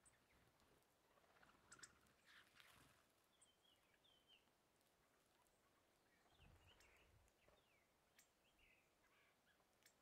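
Near silence with faint calls of small wild birds: short, high chirps scattered through, with a few faint clicks.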